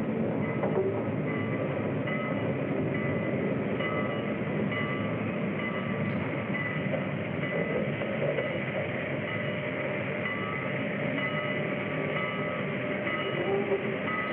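Passenger train heard as a steady running noise with faint high tones that come and go, on a dull-sounding early sound-film track.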